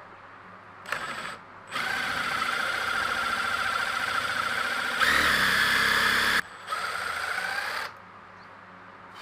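Handheld power tool's electric motor running in three bursts: a short blip, a long run of about four and a half seconds that rises in pitch and gets louder near its end, then a shorter run.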